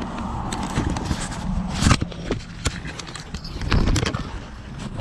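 Handling noise from a camera being carried and swung about: irregular knocks and thumps over a low rumble.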